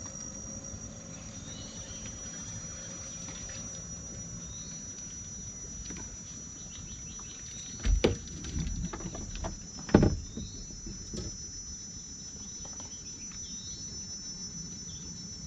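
Insects droning steadily in one high, unbroken tone, with short chirps now and then. About halfway through come two sharp knocks on the boat, about two seconds apart, with a little clatter between them, as fishing gear is handled.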